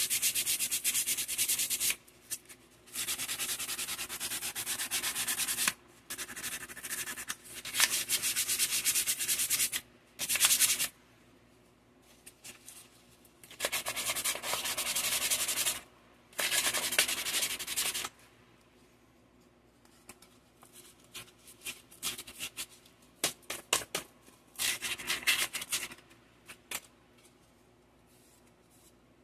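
Hand sanding a small white part with a piece of wet/dry sandpaper: quick back-and-forth strokes in runs of two to four seconds with short pauses, then softer, scattered strokes over the last third.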